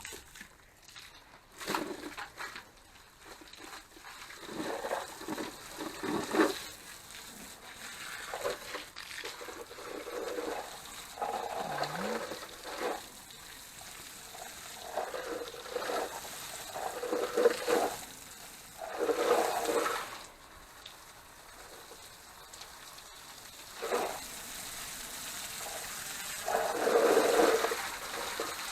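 Water from a garden hose splashing onto greenhouse plants and soil, rising and falling unevenly in repeated surges.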